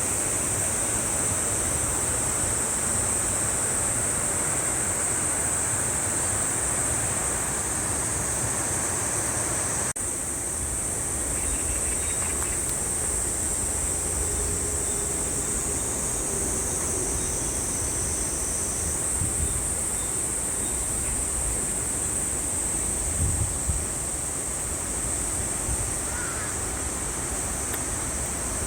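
Valley stream water rushing over rocks: a steady, even rush with a constant high hiss on top. The sound cuts and resumes slightly changed about ten seconds in, and a few low bumps come near the end.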